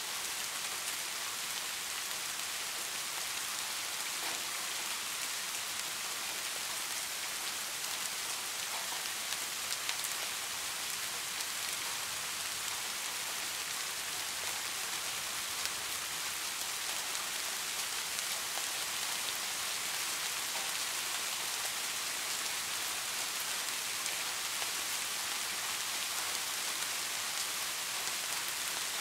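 Steady rain falling: an even hiss of many drops, with now and then a single louder drop standing out.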